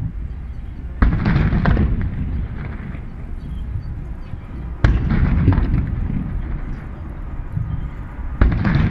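Gun salute: three cannon reports, about four seconds apart, each a sharp bang followed by a long rumbling tail that echoes across the harbour.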